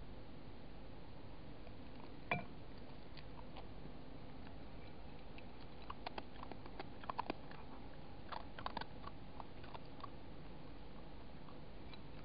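Red fox eating from a shallow dish: a single sharp knock about two seconds in, then scattered crunching and clicks of teeth against the dish for several seconds, over a steady hiss.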